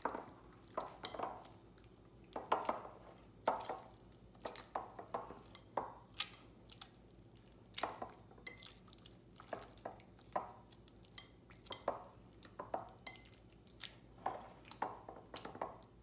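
Metal fork mashing ripe avocado in a glass mixing bowl: irregular clinks and scrapes of the tines against the glass, one or two a second.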